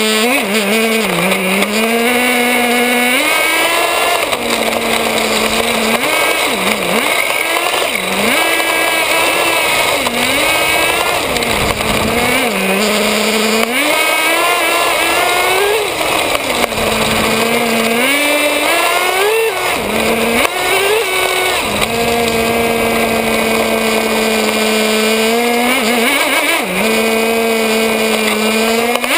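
Small nitro (glow-fuel) two-stroke engine of a Traxxas Nitro 4-Tec RC car, heard from on board, buzzing through repeated throttle bursts that rise and fall in pitch. For the last several seconds it settles to a steady idle. The owner says the engine still needs tuning for performance.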